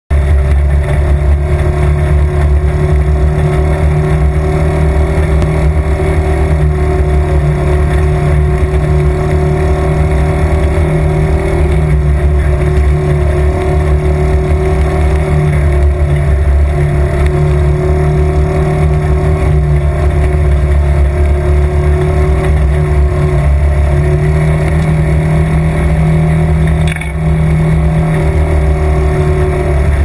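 Side-by-side UTV's engine running steadily as it drives along a dirt trail, heard from inside the open cab as a loud, even, deep drone. A short knock with a brief dip in the engine sound comes near the end.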